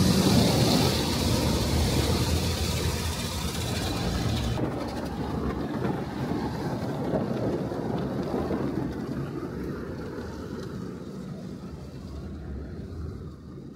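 Automatic car wash heard from inside the car: a loud hiss of water spraying onto the car, cutting off suddenly about four and a half seconds in, leaving a low rumble that slowly fades.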